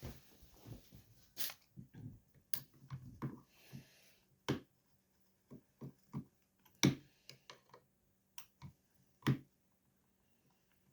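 Scattered, irregular clicks and knocks of tools and small metal parts being handled on a workbench, a few louder knocks among lighter taps, over a faint low hum.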